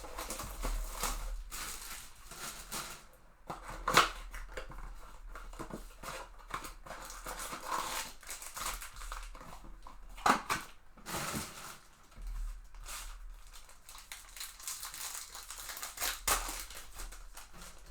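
A trading-card pack's foil wrapper crinkling as it is opened, then the cards rustling and clicking against each other as they are flipped through, with a few sharp clicks about 4 and 10 seconds in. A faint steady low hum underneath.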